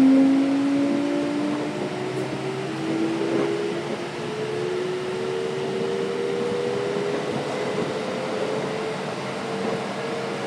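Kintetsu 5800 series train's Mitsubishi GTO-VVVF inverter and traction motors under power, heard from inside the car: several whining tones rising slowly in pitch as the train gathers speed, over steady rail running noise and the hum of the car's air conditioning.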